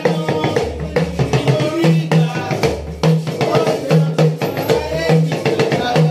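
Upbeat praise music with a driving drum and percussion beat, a repeating bass line and a voice singing over it.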